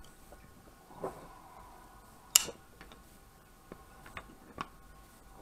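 Scattered clicks and taps of folding knives being handled, one sharp click about two and a half seconds in the loudest, and a softer knock with a brief ring about a second in.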